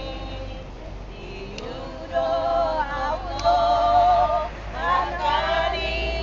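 Women singing together, holding long wavering notes, beginning about two seconds in. A steady low bus engine rumble runs underneath.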